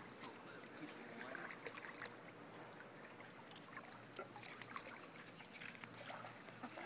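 Faint swimming-pool water lapping and sloshing, with small scattered splashes.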